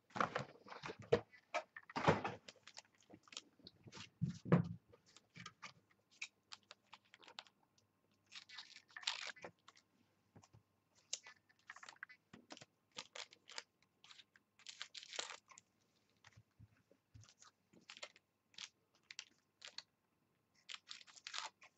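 Scattered clicks, taps and brief crinkles of sealed trading-card packs and their display box being handled, with a foil pack being cut open with scissors.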